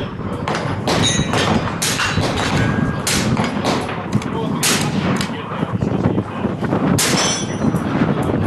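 Gunfire from several guns on a shooting range: a dozen or more sharp shots at uneven intervals, some only a fraction of a second apart.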